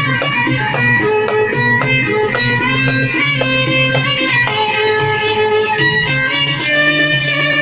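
Instrumental interlude of Egyptian religious song: a plucked string instrument plays the melody over a steady low accompaniment, with no singing.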